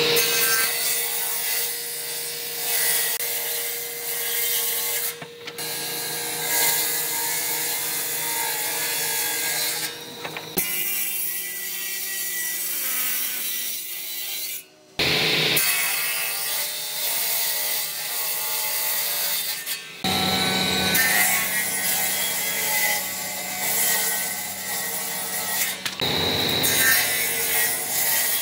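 Table saw ripping hardwood boards lengthwise: the spinning blade's steady hum under the hiss of the cut. The sound breaks off abruptly a few times.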